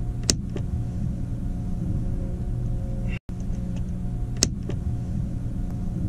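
Steady low machinery hum of a ship's cabin, with two sharp clicks, one just after the start and one about four and a half seconds in.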